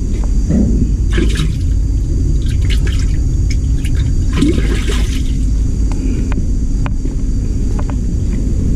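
Water sloshing and splashing in a tank as a hand moves through it, in several short bursts during the first half, over a steady low rumble.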